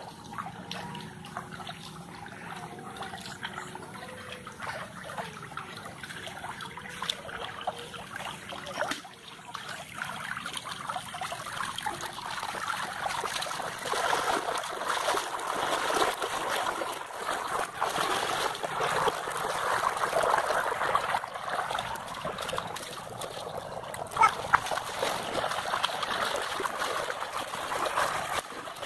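Water running in a current, trickling and splashing, louder from about halfway through. Two brief sharp splashes stand out about three-quarters of the way in.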